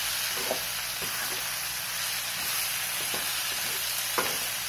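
Sliced ivy gourd, tomatoes and onions frying in an aluminium kadai with a steady sizzle, a metal ladle stirring and knocking lightly against the pan a few times.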